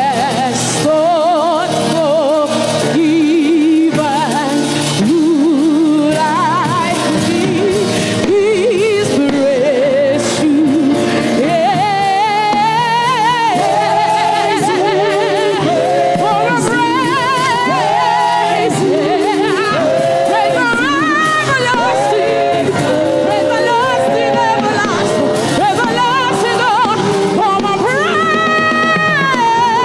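Gospel music: a solo voice singing with strong vibrato over band accompaniment, rising to a long high held note near the end.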